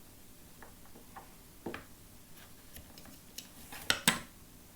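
Light, scattered clicks and taps of plastic Play-Doh toy pieces being handled, with the two loudest just before the end.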